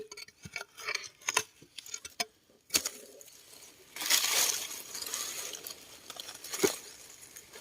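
Hand digging in a soil burrow with a small spade: scattered scrapes and clicks, then a stretch of rustling about four seconds in, with a sharp knock near the end.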